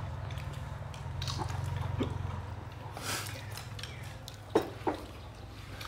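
People eating at a table: soup slurped from a bowl, with chewing, and two short knocks near the end like chopsticks against porcelain bowls. A low steady hum runs underneath and fades about halfway through.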